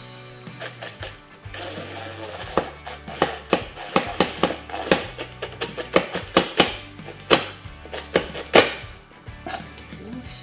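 Background music with a steady bass line and a run of sharp percussive hits.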